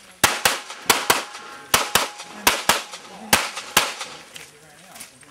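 Rapid semi-automatic pistol fire: about ten shots, mostly in quick pairs (double taps) a fifth of a second apart, each pair about half a second to a second after the last, all within under four seconds.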